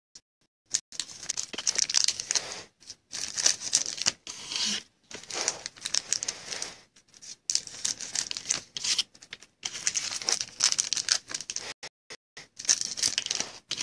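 Foil wrappers of NBA Hoops trading card packs crinkling and tearing as several packs are cut open and pulled apart, one after another, in a run of bursts with short pauses between them.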